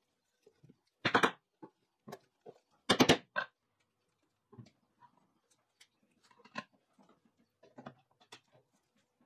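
Sharp knocks and clunks from handling a plywood chair seat and steel leg frame on a wooden workbench: two loud clusters of knocks about a second and three seconds in, then lighter scattered clicks and taps.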